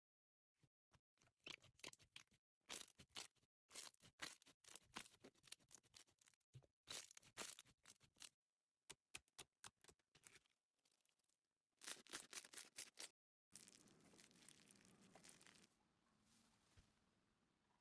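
Slime being squeezed and pulled by hand, giving quiet bursts of quick sticky clicks and crackles. There is a pause partway through, then a softer, steadier crackle near the end.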